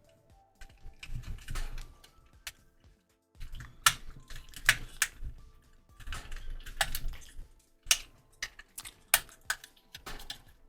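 Plastic joints and parts of a Transformers action figure being handled and snapped into place during transformation: a run of irregular sharp plastic clicks and snaps with rustling handling noise.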